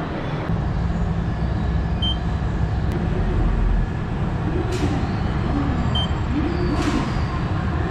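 Touchscreen ticket machine giving a short high beep twice as its buttons are pressed, over the steady low rumble of a railway station concourse. Two brief sharp clicks fall between the beeps.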